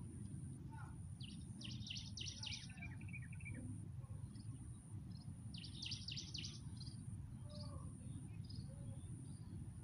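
A songbird sings two short bursts of quick, sharp notes, about a second and a half in and again near six seconds, the first ending in a brief trill. Underneath, an insect keeps up a high buzz that breaks off every second or so, over a steady low rumble.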